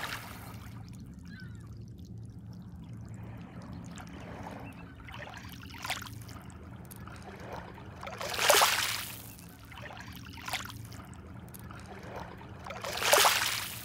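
Small waves lapping and washing over pebbles at the water's edge, with two louder washes, one past the middle and one near the end, over a faint steady low hum.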